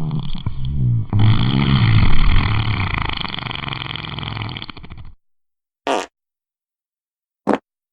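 Fart sound effects: a long, low fart with a wavering pitch that breaks off briefly about a second in and starts again, running on until about five seconds in, then two short separate farts after brief pauses.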